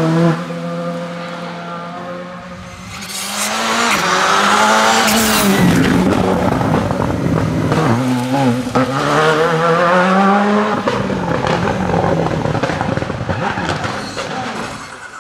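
Rally car engines at full throttle. In the first moments one engine's pitch falls away, then from about three seconds in a louder engine revs hard, its pitch climbing and dropping sharply again and again through quick gear changes, and it fades near the end.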